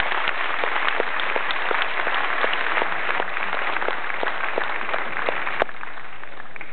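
Audience applauding: a dense patter of many hands with sharper single claps standing out. It dies away about five and a half seconds in.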